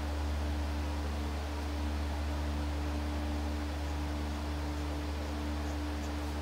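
Steady low hum with a fainter, higher steady tone over it and an even background hiss, unchanging throughout.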